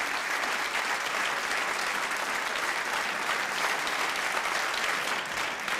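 Studio audience applauding steadily: many people clapping at once, an even patter of claps without a break.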